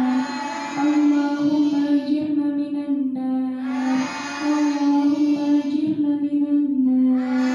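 A group of girls chanting together in unison, a melodic religious recitation sung in long held notes, phrase after phrase of a few seconds each.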